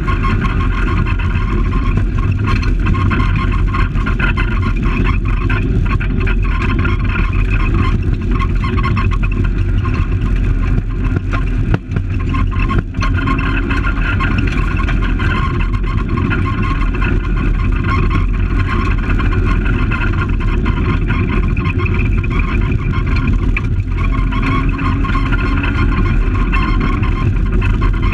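Fiat Palio rally car's engine running hard at high revs, heard from inside the cabin while driving on a gravel stage road, mixed with road and tyre noise. The loudness drops briefly twice near the middle.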